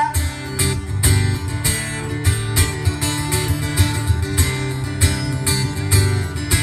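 Acoustic guitar strummed in a steady rhythm, about three strums a second, amplified through PA speakers, in an instrumental break of the song with no vocals.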